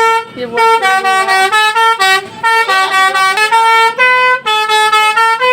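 Telolet bus horn (a Basuri multi-tone horn) playing a quick melody. Its notes step between a few pitches in short phrases with brief gaps between them.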